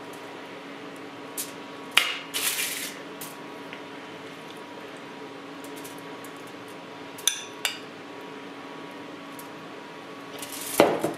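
A metal kitchen utensil clinks and scrapes against cookware as food is served out. There is a sharp clink about two seconds in followed by a brief scrape, two quick ringing clinks a little past the middle, and a louder clatter near the end, all over a steady background hum.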